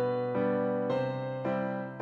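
Background music: a gentle keyboard tune, piano-like chords struck about twice a second, each fading before the next.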